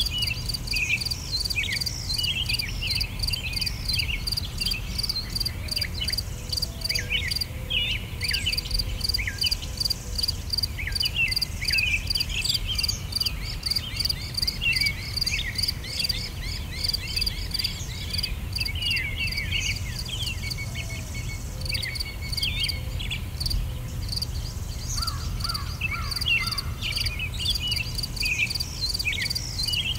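Insects trilling in a fast, steady pulse, with many short bird chirps over it and a low rumble beneath.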